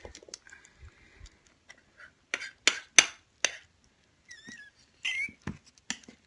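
A spoon clinking against dishes while wet cat food is served, with four sharp clinks between about two and a half and three and a half seconds in and lighter ticks around them.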